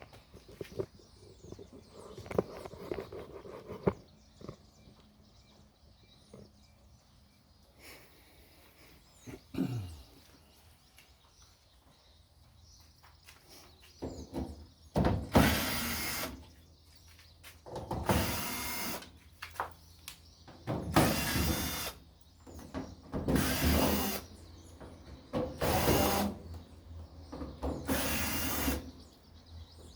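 Tool and panel handling, a few clicks and knocks, then about halfway a power drill-driver runs in six short bursts, one every two and a half seconds or so, as screws are backed out of a washing machine being taken apart.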